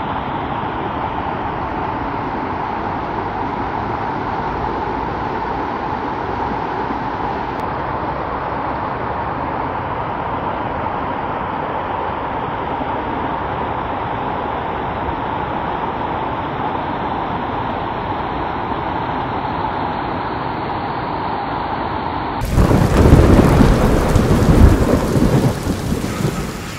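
Steady rush of floodwater pouring across a road and down a flooded channel in heavy rain. Near the end a sudden, much louder rumble of thunder cuts in.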